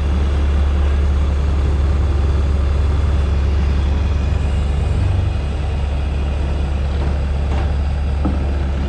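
Bobcat S175 skid-steer loader's diesel engine running steadily under load, slowly pushing a grain drill up the trailer ramps. The drone eases a little about five seconds in, and a couple of faint knocks come near the end.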